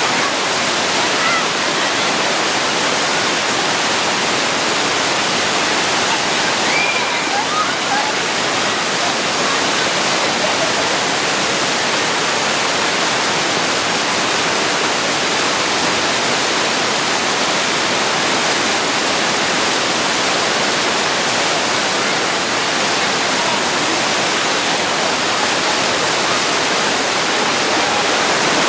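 Waterfall's steady rush of falling water, loud and even throughout, with a faint voice or two near seven seconds in.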